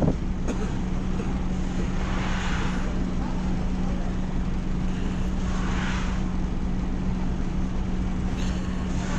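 Passenger ferry's engine running, a steady low drone with an even hum, and a short knock right at the start.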